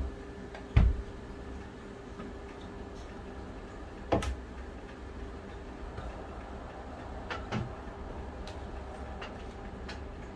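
A few scattered knocks against wooden framing as a carpenter works with a spirit level on the studs: the loudest about a second in, another around four seconds, and a quick pair near seven and a half seconds. A faint steady hum runs underneath.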